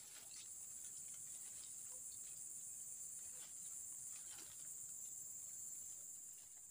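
Steady high-pitched insect chorus, with faint scattered crackles of dry leaf litter being scraped aside by hand.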